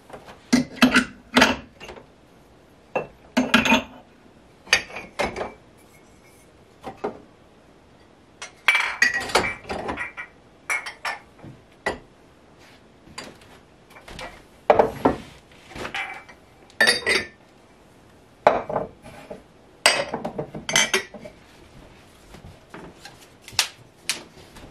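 Dishes being put away from a drying rack: an irregular clatter of ceramic clinks and knocks as plates, bowls and mugs are lifted out and set down, some in quick runs of two or three, with short pauses between.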